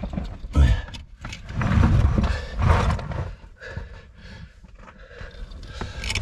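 A man grunting and straining with effort, in several short heaves, as he squeezes his body through a very tight rock crawlway, with scrapes and knocks of his clothing and gear against the rock in between.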